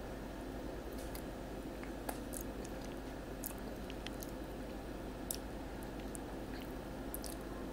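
Soft squishing and faint sticky clicks of melted chocolate being pressed and smoothed by hand, over a steady low hum.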